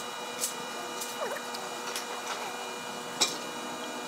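Hardwood frame pieces clicking and knocking lightly against each other as a glued joint is fitted together, with one sharper knock about three seconds in, over a steady hum.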